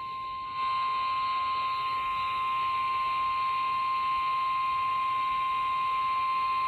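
Emergency Alert System attention tone on a radio broadcast: a single steady, unbroken alarm tone sounding ahead of a severe thunderstorm warning, stepping up in loudness about half a second in.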